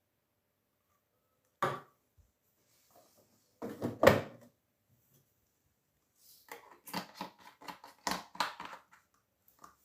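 Daewoo DWD-FT1013 front-loading washing machine making clicks and knocks: a sharp click, a louder knock about two seconds later, then a quick run of clicks and knocks near the end.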